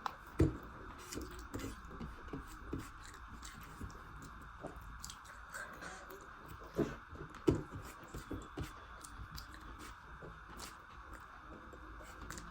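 A person chewing food close to the microphone: a run of small wet mouth clicks and smacks, with a few louder knocks about half a second in and twice near the middle.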